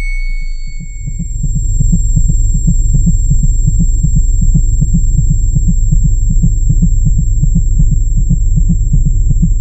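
A low throbbing heartbeat-like pulse from the soundtrack's sound design. It beats evenly about four to five times a second, swells in over the first two seconds and then holds steady.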